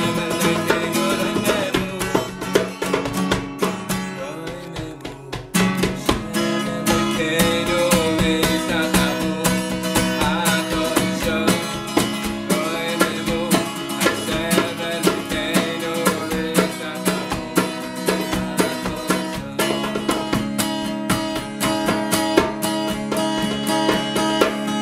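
A man sings a niggun, a wordless Jewish melody, while strumming a steel-string acoustic guitar. The strumming eases off about four seconds in, then comes back strongly a moment later.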